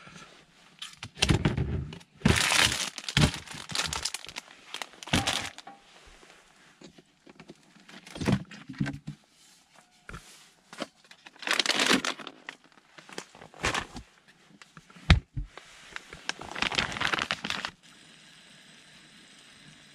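Plastic food packaging crinkling and tearing in irregular bursts, with sharp clicks and knocks from handling a plastic storage box's lid and latches. Near the end it cuts suddenly to a faint steady hiss.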